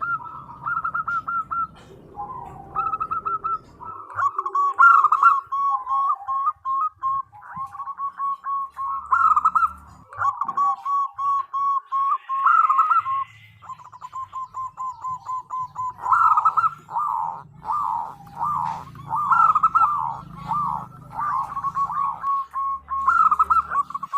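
Female zebra dove (perkutut) cooing, the call used to lure males: rapid runs of short, staccato notes near one pitch, broken by trilling phrases and repeated throughout.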